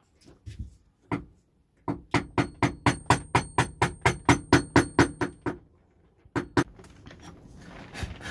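Wooden mallet striking a wood chisel to chop out a bowtie pocket to the line. There are a few scattered taps, then a quick, even run of about five strikes a second for three or four seconds, then two more blows.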